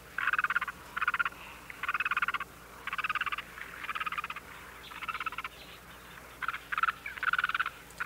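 Frog calling from the marsh: short, rapidly pulsed trills of about half a second each, repeated roughly once a second.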